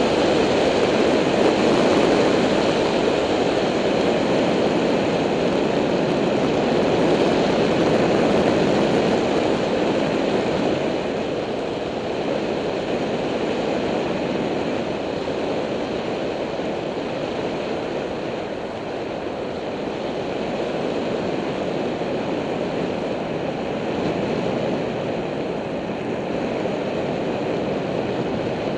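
Steady rushing wind noise over the microphone of a camera on a moving bicycle, easing slightly about ten seconds in.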